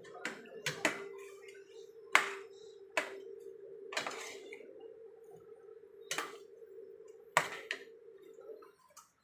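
A cooking utensil knocking and scraping against a pot of sauce, about eight sharp clanks with one longer scrape near the middle, over a steady hum that stops shortly before the end.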